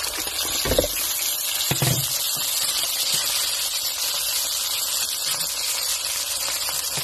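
Soy sauce and vinegar sauce sizzling in hot frying oil in a wok, a steady hiss. Two dull thumps come about a second and two seconds in.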